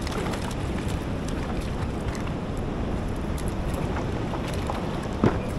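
Wind buffeting the microphone over choppy sea water around a kayak, a steady rushing noise. One sharp knock sounds about five seconds in.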